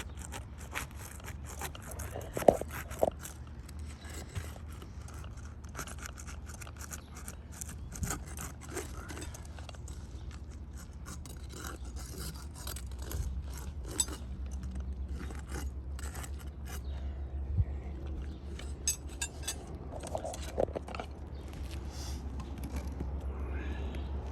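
A metal pry tool scraping and clicking under asphalt roof shingles in short, irregular strokes as it breaks the seal strips and works the nails loose, with a few sharper knocks.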